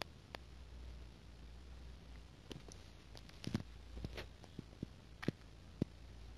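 Low steady hum with a scattered handful of faint, short clicks and taps, most of them in the second half.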